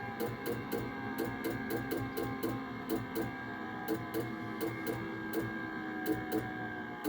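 York gas furnace clicking rapidly and irregularly, several clicks a second, over a steady hum. This is the furnace's response to a Nest thermostat that has no 24 VAC power.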